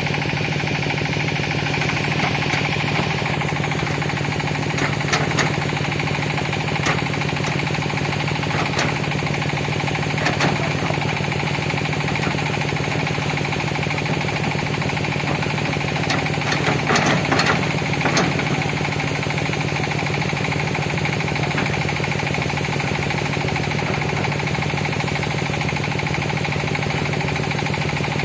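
Hitachi ZX200 hydraulic excavator's diesel engine running steadily, with scattered short knocks and clanks, bunched together a little past halfway.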